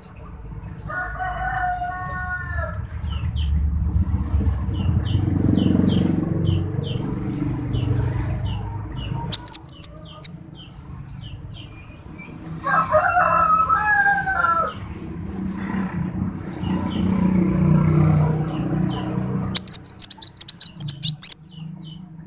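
Male kolibri wulung sunbird calling: a run of short high chirps, broken twice by loud bursts of rapid high trilled notes, about ten seconds in and again near the end. A rooster crows twice in the background, about a second in and again near the middle.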